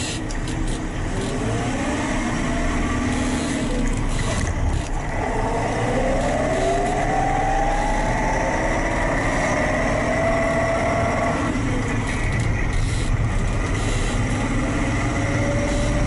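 JCB 3CX backhoe loader's diesel engine and transmission running under way, heard from inside the cab. A whine rises steadily in pitch for several seconds and cuts off about eleven seconds in.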